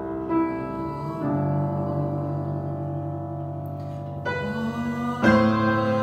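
Pearl River upright piano played slowly in sustained chords, a new chord struck four times and each left ringing.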